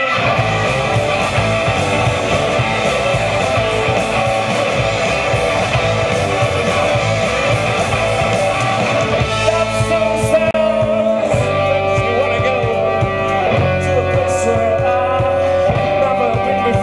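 A live rock band playing electric guitars and a drum kit, with some singing. About halfway through the playing thins out into a sparser passage with longer held guitar notes.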